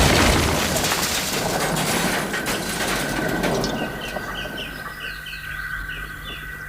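A loud, noisy rush that dies away over the first few seconds, then chickens clucking, a quick run of short calls, from about four seconds in.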